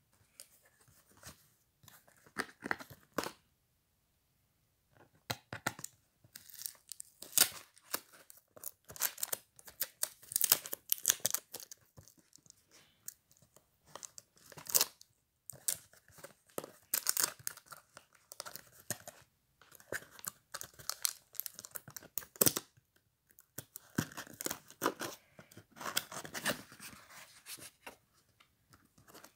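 Packaging being handled and opened by hand: irregular crinkling and tearing of a memory card's plastic-and-card pack and the cardboard flaps of a lens box, in short runs with a brief pause a few seconds in.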